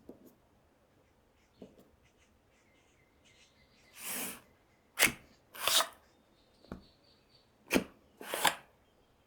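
Hard plastic parts of a CSM Lostdriver toy belt and its Gaia Memory being handled: a few faint clicks, then from about four seconds in a run of short scraping rustles and two sharp snaps.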